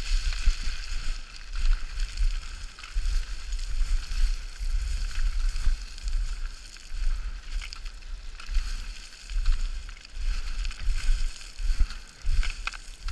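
Feet running and sliding down loose scree, the stones crunching and rattling underfoot with scattered sharper clicks. Gusty low rumbles of wind buffet the microphone throughout.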